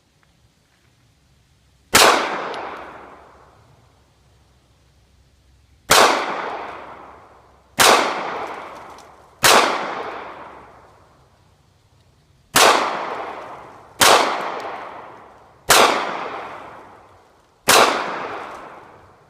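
Eight gunshots in a row at uneven intervals, each with a ringing tail that fades over about a second and a half. These are cartridges whose primers sat wet in an ammo belt for two years, firing normally.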